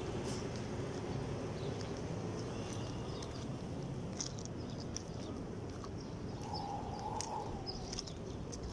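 Outdoor ambience: a steady low rumble with scattered faint high chirps, likely small birds.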